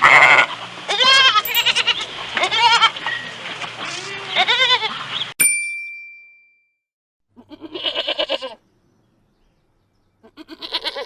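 Several animals bleating over and over, the calls wavering up and down in pitch and overlapping, until the sound cuts off about five seconds in with a short ringing ding. After a pause come two more single quavering bleats.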